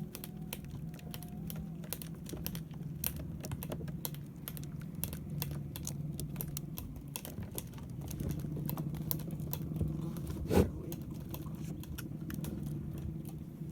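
A small fishing boat's engine runs steadily under a stream of irregular sharp clicks and ticks, with one loud knock about ten and a half seconds in.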